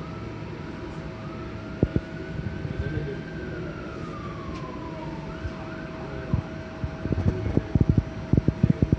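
A distant emergency-vehicle siren wails, rising slowly and then falling over several seconds, followed by a few quicker up-and-down sweeps. Under it runs the steady hum of a stopped streetcar, with a run of sharp knocks near the end.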